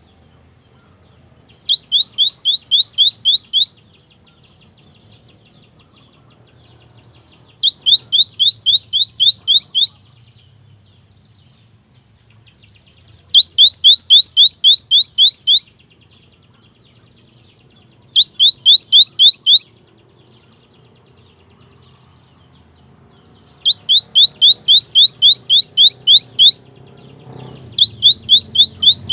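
Cinereous tit (gelatik batu) singing its loud, rapid song of rising whistled notes. It sings six phrases of about eight to ten notes each, with a pause of a few seconds between them. A faint, steady high-pitched tone runs underneath.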